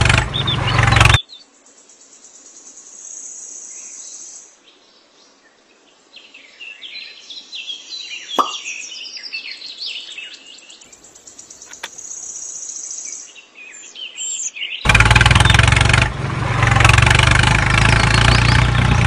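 Birds chirping and calling, with one quick falling note about eight seconds in, between stretches of background music that cuts out about a second in and returns near the end.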